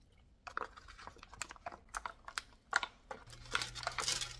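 Irregular sharp clicks and knocks of ice cubes in a stainless steel tray as cold-water frying batter is mixed, then parchment paper crinkling as it is pressed into a wire rack tray near the end.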